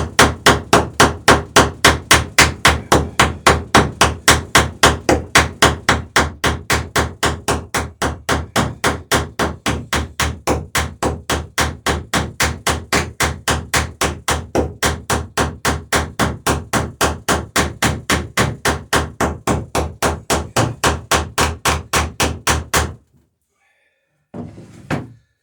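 Rapid, evenly paced hammer blows, about three or four a second, peening a boat-planking rivet over its burr. The hammering stops abruptly near the end.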